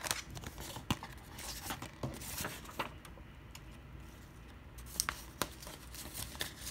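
A paper Blu-ray cover insert sliding and crinkling as it is pulled from its plastic case and turned over, with scattered light clicks and scrapes from the case.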